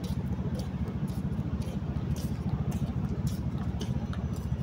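Steady low rumble of an idling engine, with scattered light clicks and taps.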